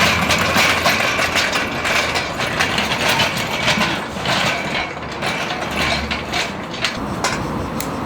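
Rapid metallic ratchet clicking with knocks of metal tools, as a ratchet mechanism is worked in quick strokes.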